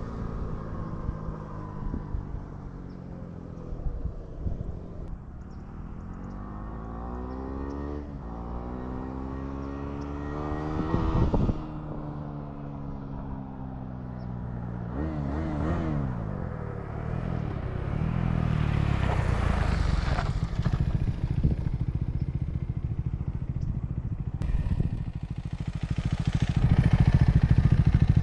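KTM 390 Adventure's single-cylinder engine running through its exhaust, revs repeatedly climbing and falling, with one steep climb that cuts off sharply about a third of the way in. It grows louder in the second half and is loudest near the end.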